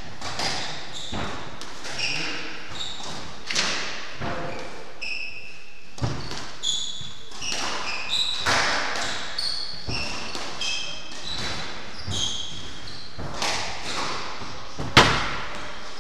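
A squash rally: the ball cracking off rackets and the court walls about once a second, with shoes squeaking on the wooden floor between shots. The sharpest, loudest crack comes about a second before the end.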